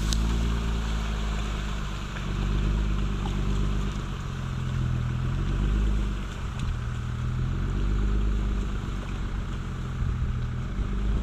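Jeep Wrangler's engine revving up and down under load as it drives through a flooded mud hole, the pitch rising and falling every couple of seconds.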